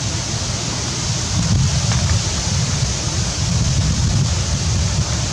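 Wind buffeting the microphone: a steady, gusting low rumble under an even hiss.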